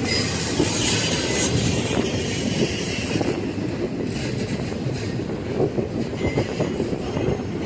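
Double-stack intermodal container train rolling past on its well cars: a steady rumble of steel wheels on the rails, with a continuous fast rattling clatter.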